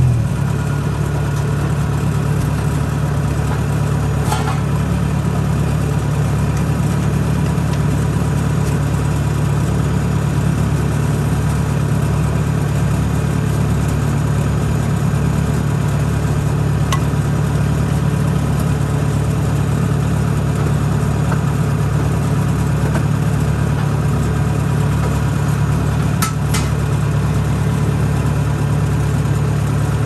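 Rice harvester engine running steadily at a constant pitch, with a few faint clicks over it.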